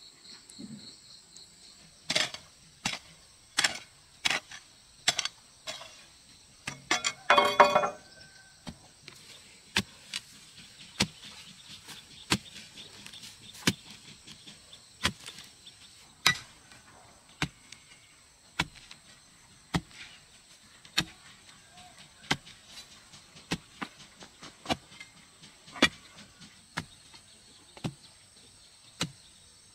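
Hand-tool strikes repeated at a steady pace of about one a second, with a louder, ringing clatter of quick strikes about a quarter of the way in. Insects trill steadily in the background.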